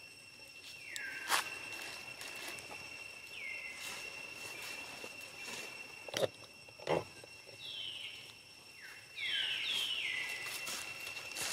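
Outdoor forest ambience: a steady high insect drone, with several short whistled calls that each drop in pitch and then level off, bunched together near the end. A few sharp knocks or rustles break in, the loudest two about six and seven seconds in.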